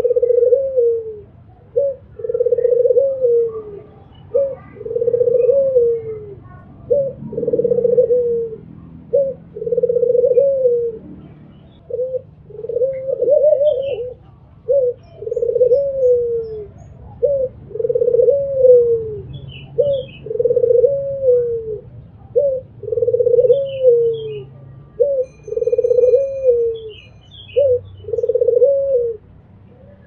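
White albino puter dove (a Barbary dove) cooing over and over. Each phrase is a short coo followed by a longer, arching coo, repeated about every two seconds.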